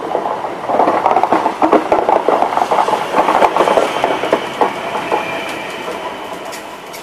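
Trenitalia ETR 521 'Rock' double-deck electric multiple unit pulling out of the station and passing close by, its wheels clattering in rapid clicks over the rail joints with a steady whine underneath. The sound fades as the last car goes by, about five seconds in.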